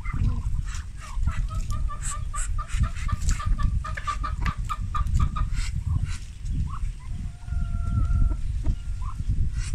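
Chicken clucking in a quick run of short notes, about four a second, then two longer drawn-out calls near the end.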